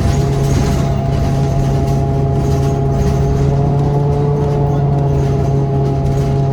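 2014 New Flyer Xcelsior XDE40 diesel-electric hybrid bus running: a steady, loud, low drone with several steady whining tones above it, the sound the rider calls downright awful.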